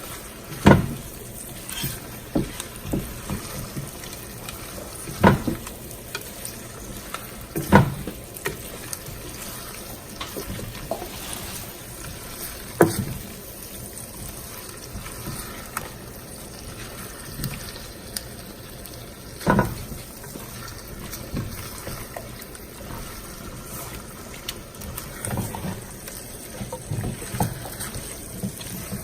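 Head-on shrimp cooking in a pan of melted butter with garlic and onions, bubbling and sizzling steadily as they are stirred, with a utensil knocking sharply against the pan about five times.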